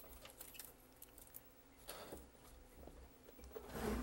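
Faint small clicks and soft rustling of hands working a stuck VHS tape free from a VCR's tape mechanism. A louder scuffing bump comes near the end.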